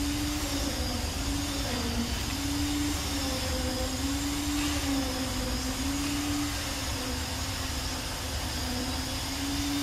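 A motor droning steadily, its pitch wavering slightly up and down every second or two, over a low rumble.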